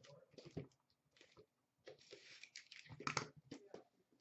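Plastic shrink wrap crinkling and crackling in irregular bursts as it is peeled off a sealed trading-card box.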